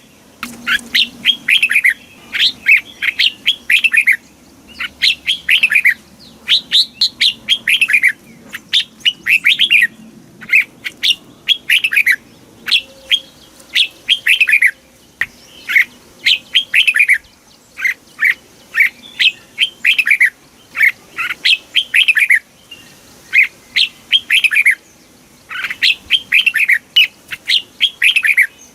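Red-whiskered bulbul singing: short, clear phrases of quick notes, each falling in pitch, repeated about once a second with brief pauses between them.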